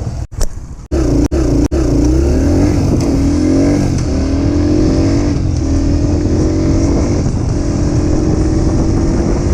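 Honda CRF150F dirt bike's single-cylinder four-stroke engine accelerating. Its pitch climbs and drops back several times as it shifts up through the gears, then holds steadier near the end. The sound cuts out briefly a few times in the first two seconds.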